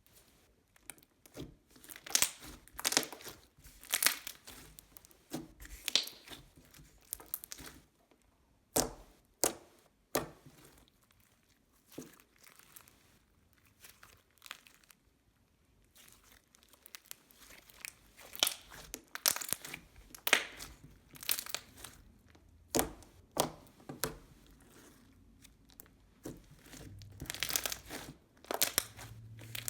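Packaging being torn open and crinkled by hand, in irregular bursts of crackly tearing and crumpling with a short pause midway.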